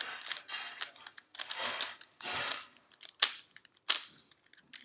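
A V-Cube puzzle cube being handled and turned: plastic clicks and rattling of its layers, with two sharper clicks in the second half.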